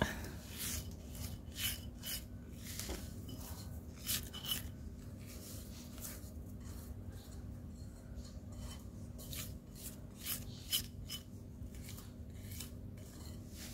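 Spoon scraping roasted wheat flour out of a bowl, in a string of short, scattered scrapes and taps.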